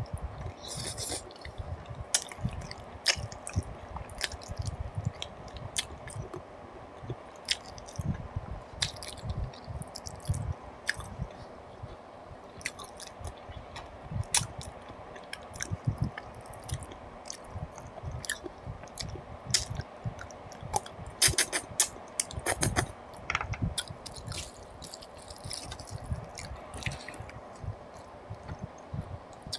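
Close-miked mouth sounds of a person biting and chewing mutton paya, goat trotter pieces in curry eaten by hand and sucked off the bone: wet chewing with many irregular sharp clicks.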